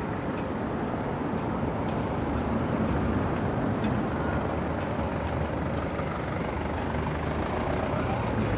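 A motor vehicle's engine running steadily, a low rumble that carries on without a break.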